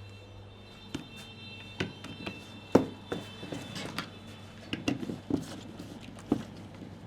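Head and neck massage: an irregular series of about a dozen short, sharp taps and slaps of hands on the head and neck, the loudest a little before the middle.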